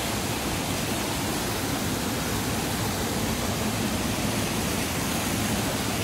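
A small waterfall pouring over a rock ledge into a pool: a steady rush of falling water.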